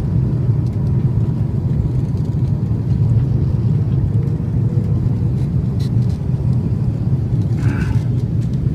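Steady low rumble of an airliner's cabin noise, engines and airflow heard from inside the cabin during the descent to land.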